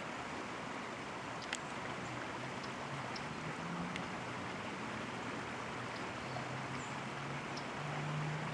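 Outdoor ambience: a steady rushing background noise with a low engine drone that grows louder near the end. A few faint, short high ticks sit on top, with one sharper click about a second and a half in.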